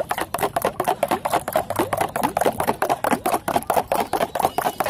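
A steel spoon stirring aloe vera juice fast in a plastic jug, knocking and scraping against its sides in an even, rapid clatter of about eight strokes a second, with the juice sloshing.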